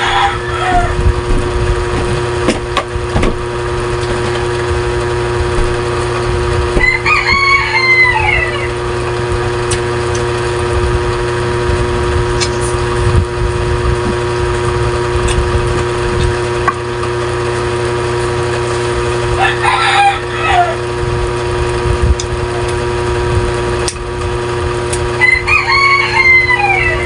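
A rooster crowing four times, several seconds apart. Under it runs a steady hum, with occasional light clicks of food handling.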